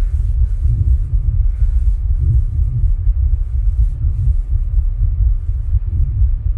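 Heartbeat recorded at the chest during rebreathing from a plastic bag: a continuous low rumble of heart sounds, with a faint higher swell about every two seconds.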